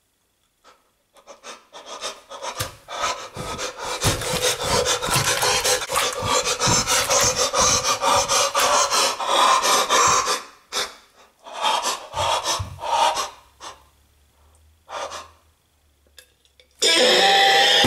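Wet, mushy food paste being rubbed, squished and smeared by hand on a floor, in a dense run of irregular squelching and scraping that thins to a few scattered bursts. Near the end a loud, steady pitched sound starts suddenly.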